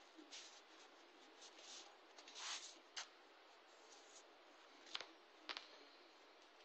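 Near silence: quiet room tone with a brief scratchy rustle about two and a half seconds in and a few faint clicks, once around three seconds and twice near five seconds, handling noise of the phone filming at close range.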